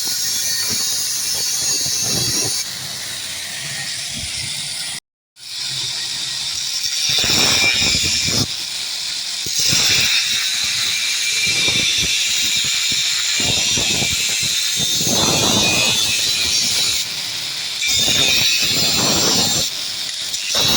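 Power cutter, most likely an angle grinder with a cutting disc, cutting steel: a harsh, continuous high hiss that swells and eases as the disc bites into the metal. It breaks off for a moment about five seconds in.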